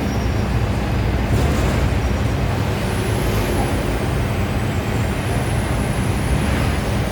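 A steady low hum and rumble, with a faint high whine that rises and falls from about three seconds in.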